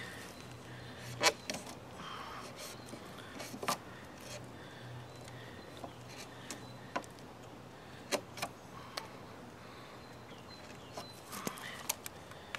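Casström No. 10 Swedish Forest knife cutting into a thin living branch: irregular sharp clicks and snaps as the blade bites the wood, the loudest about a second in. A faint steady low hum runs underneath.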